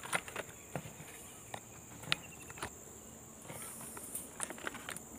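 A steady, high-pitched drone of insects, with scattered snaps and rustles of twigs and dry brush underfoot as someone moves through undergrowth. The sharpest snap comes about two seconds in, and the rustling thickens in the second half.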